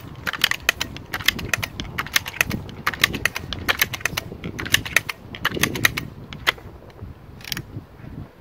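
Seneca Dragonfly Mk2 multi-pump air rifle being pumped: the forearm lever is swung open and shut stroke after stroke, with a fast run of metallic clicks from the pump linkage. The clicking stops about six and a half seconds in, and a short hiss follows.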